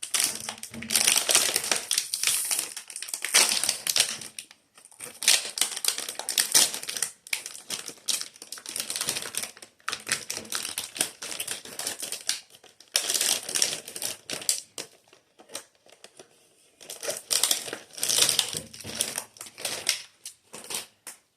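Plastic pastry wrapper crinkling and crackling as it is handled and opened, in irregular bursts with a few short pauses.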